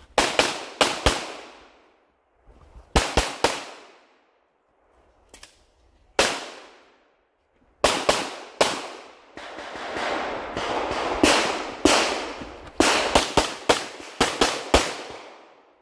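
Pistol shots fired in quick pairs and short strings with pauses between, each crack trailing off in echo. A faster string of shots comes near the end.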